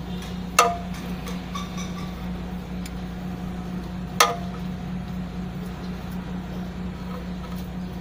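Two sharp metallic clinks about three and a half seconds apart, as hands work the hand priming pump on the fuel filter head of an Isuzu 4HF1 diesel to bleed air from the fuel system. A steady low hum sits underneath.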